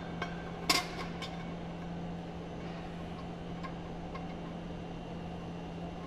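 A sharp metal clank about a second in, with a smaller clink just before it and a few faint ticks after, as lifting bolts are fitted to a pump's steel bonnet. A steady low hum runs underneath.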